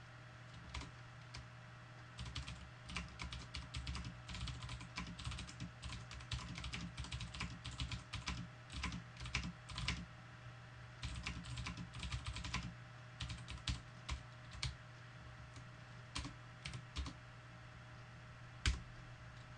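Typing on a computer keyboard: irregular runs of quick key clicks with short pauses between them, and one harder keystroke near the end. A steady low hum lies under the clicks.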